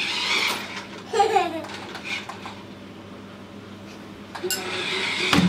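A toddler giggling and young children squealing, with a sharp knock near the end.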